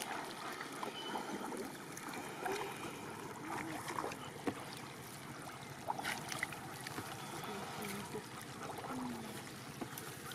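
Shallow water sloshing and trickling as hands grope through grass and mud at the water's edge, with a few brief sharper splashes around the middle.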